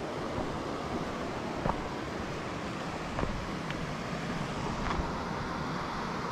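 Steady rushing noise with a few scattered, irregular sharp clicks of footsteps on rock.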